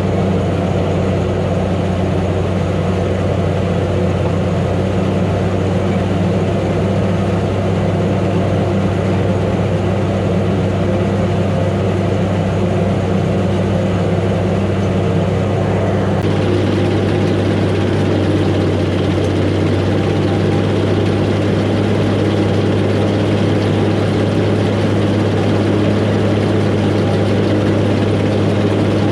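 Gleaner A2 combine harvester running steadily, its engine giving a constant low drone. About halfway through, a louder rattling hiss from the machinery joins in.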